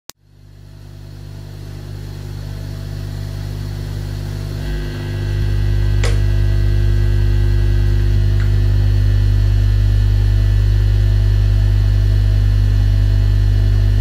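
Low, steady electric drone from a guitar effects rig, fading in from silence and growing louder about five seconds in, with a single click about six seconds in.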